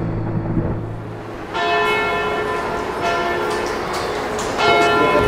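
A church bell struck three times, about a second and a half apart, each strike ringing on with several tones. A flamenco guitar fades out just before the first strike.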